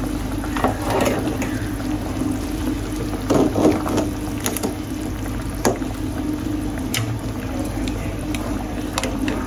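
Tomato broth bubbling at a boil in a large aluminium stockpot, over a steady low hum, with a few short knocks, the loudest about three and a half seconds in.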